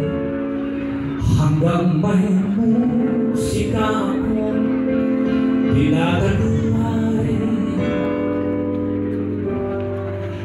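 A song playing: a singer holds long notes and slides between them over sustained instrumental backing.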